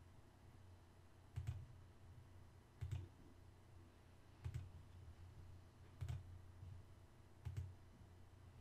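Computer mouse clicking: five faint single clicks about a second and a half apart, each with a low knock under it.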